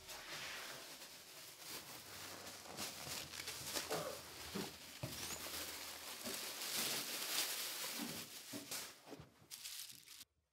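A thin plastic bag crinkling as it is shaken out, with small plastic toy soldiers tumbling onto carpet and clicking lightly against each other as hands spread them out.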